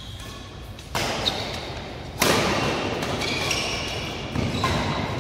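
Badminton doubles rally on a synthetic indoor court: rackets striking the shuttlecock, and players' shoes thudding and squeaking on the court, echoing in the hall. It gets suddenly louder about a second in and again about two seconds in.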